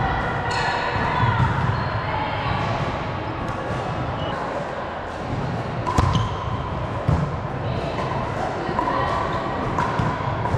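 Indoor volleyball play: a sharp ball contact about six seconds in, over players' voices and movement on the court.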